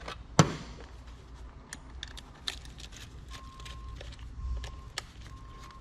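Scattered clicks and clinks of small metal parts and tools being handled as the metal brackets come off PCI expansion cards, with one louder knock about half a second in.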